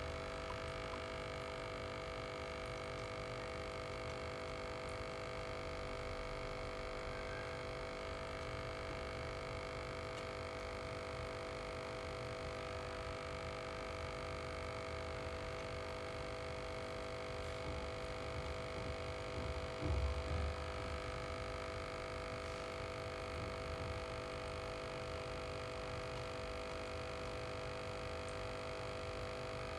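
Aquarium air pump humming steadily, a few fixed tones over a low drone, with a brief low thump about twenty seconds in.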